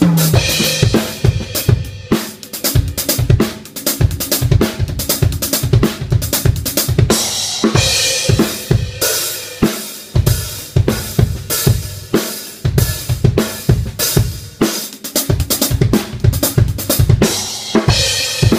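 Acoustic drum kit played hard and fast through a PA during a sound check: kick drum, snare and tom strokes in quick runs, with cymbal crashes about 8 s in and near the end.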